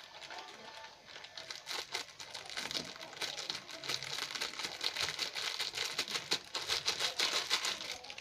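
Plastic and paper packaging of instant noodle cups crinkling and rustling in irregular bursts as it is handled and opened.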